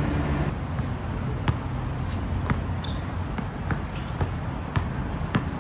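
A basketball being dribbled on an outdoor hard court: about six sharp bounces at uneven spacing, coming quicker toward the end, over a steady low background rumble.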